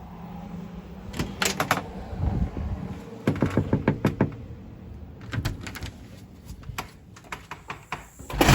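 Knuckles knocking on a door in several quick runs of knocks, with the loudest knock near the end.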